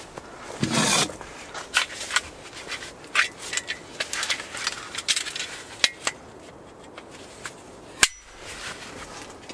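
A folding saw being picked up and unfolded by hand: a string of small clicks, knocks and light metallic clinks from the frame and blade, with a rustling burst about a second in and a sharp click about eight seconds in.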